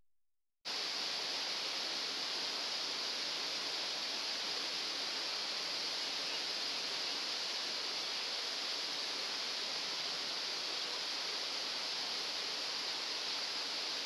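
Steady rush of water pouring over a small rock waterfall, an even hiss that starts about half a second in and holds at one level.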